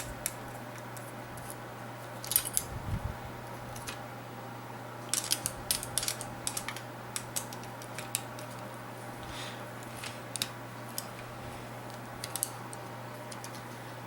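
Small metal screws being unscrewed from a CD-ROM drive's sheet-metal basin with a screwdriver: scattered light clicks and scrapes of metal on metal, in clusters, over a steady low hum.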